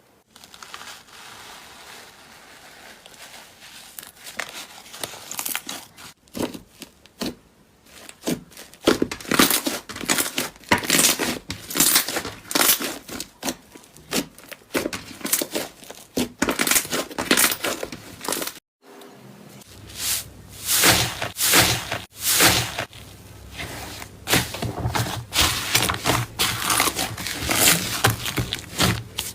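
Slime being squeezed and pressed, making dense, irregular crackling and crunching. The sound drops out briefly about two-thirds of the way through, and a steady low hum then runs under the crackling.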